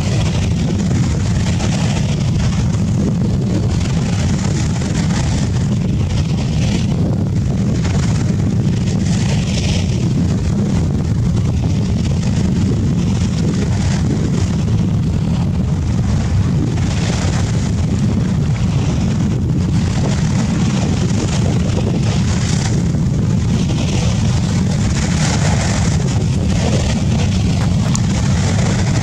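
F-35B's engine and lift fan running in a hover: a loud, steady low rumble with a hissing upper edge that swells and fades every few seconds.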